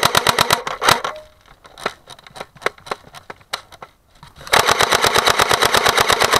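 Airsoft AK-47 replica firing full-auto in rapid, evenly spaced bursts: one burst ends about a second in, and another starts about four and a half seconds in and runs past the end. Scattered single clicks and pops come in between.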